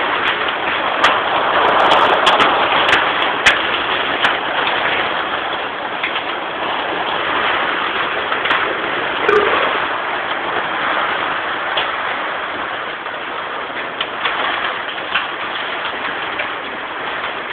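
Heavy rain mixed with small hail: a steady loud hiss of rain with scattered sharp ticks of hailstones striking, most of them in the first few seconds.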